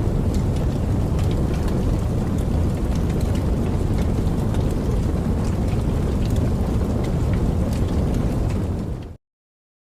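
Campfire burning with a steady low rumble and scattered sharp crackles and pops, fading out quickly about nine seconds in.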